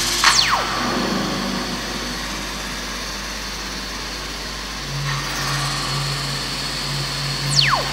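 Motorised moving-head stage light running, a steady whir and hum from its motors and fan. Twice, just after the start and again near the end, a fast falling whine sweeps down from high to low as the head moves.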